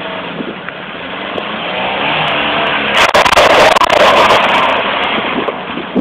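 Peugeot 306 accelerating away and passing close by: the engine note rises and grows louder, peaks about three seconds in with a loud rush for about a second and a half, then fades as the car moves off.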